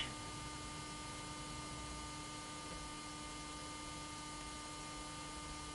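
Steady background hum and hiss: a few faint steady tones over an even hiss, with nothing else happening.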